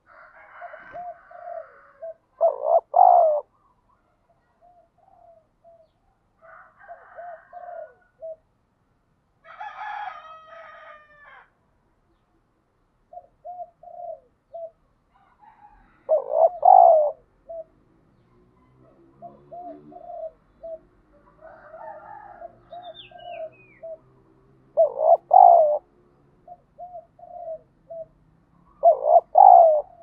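Spotted dove cooing in quick runs of short, repeated coos, broken every few seconds by a louder, drawn-out coo. This is the excited challenge cooing of a male.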